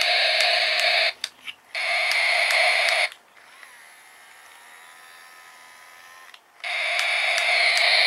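Robo Dino T-Rex robot toy playing its electronic roar through its small built-in speaker, harsh and distorted. One roar ends about a second in, a second follows right after, and a third starts near the end after a few seconds' pause.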